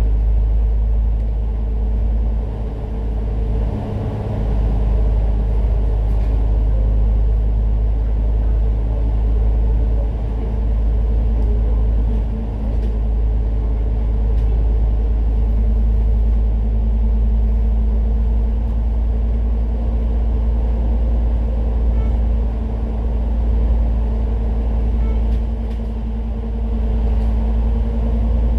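Citybus bus in motion: steady engine hum over a constant low rumble of road and drivetrain noise, with small dips in level now and then.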